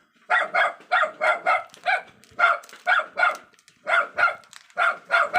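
A small dog yapping repeatedly in short, high-pitched barks, often in quick pairs, about three a second with brief pauses between runs.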